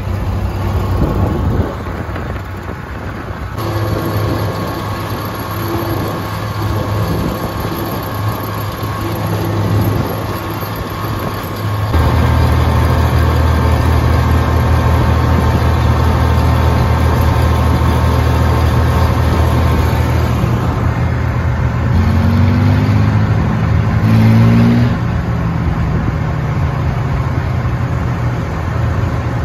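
Old farm tractor engines running steadily as the tractors drive along the road, a loud low engine note. The sound shifts abruptly twice, and near the end an engine's pitch rises twice as it speeds up.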